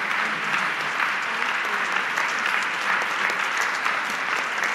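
Many people applauding together, a steady dense clapping from a congregation.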